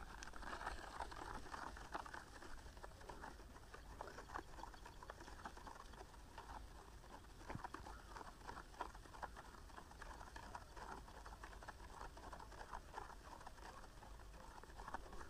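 A stick stirring potassium permanganate solution in a small cup: faint, quick, irregular scraping and tapping against the cup.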